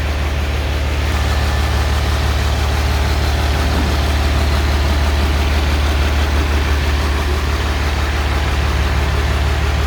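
Freshly rebuilt Mercedes-Benz OM366LA turbocharged, intercooled inline-six diesel engine idling steadily.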